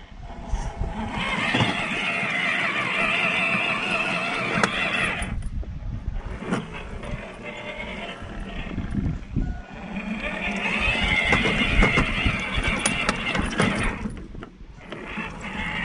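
WPL B36 Ural RC truck's 370 electric motor and metal two-speed gearbox whining as the truck crawls over rock, in two long runs of several seconds with a quieter gap between. Sharp clicks and knocks from the tyres and chassis on the rock come in between.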